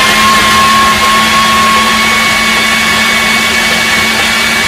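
Kenwood food processor motor running at full speed, its blade chopping torn bread slices into crumbs: a loud, steady whir with a steady whine.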